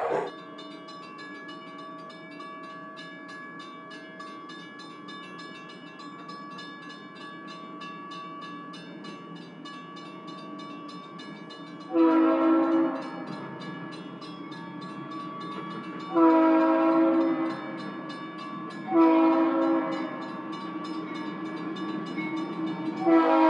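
Train horn sounding four separate blasts of about a second each, the first about halfway through, over a steady humming drone of a train running.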